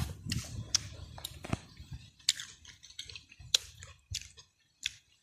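A person chewing crisp sour mango, a string of irregular wet crunches and clicks that thins out near the end.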